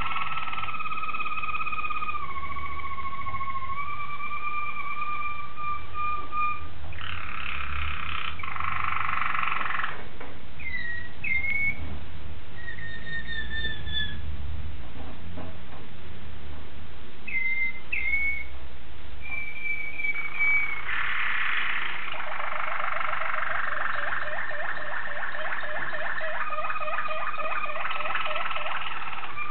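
Waterslager (Malinois) song canaries singing. The song has long, pure whistled notes that slide slightly in pitch, short upward-flicked notes midway, and rapid bubbling, rolling trills through the last third.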